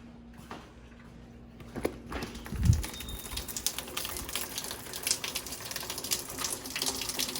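Rain falling, a dense patter of many small drop ticks that starts about two seconds in, with a single low thump just after it starts.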